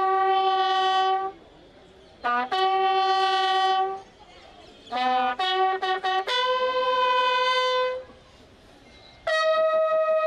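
Military bugles sounding a slow ceremonial call in four phrases. Each phrase opens with a few quick short notes and settles into a long held note, with short pauses between the phrases.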